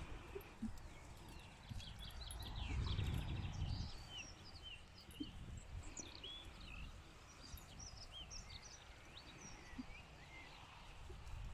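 Small birds chirping in many quick, short calls, over a soft steady hiss, with a low rumble swelling about three seconds in and again near the end.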